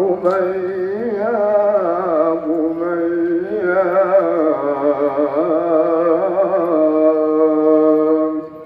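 Man's solo voice chanting a devotional Maulid recitation through a microphone and PA, in a melismatic melody with wavering, ornamented notes, ending on a long held note that stops shortly before the end.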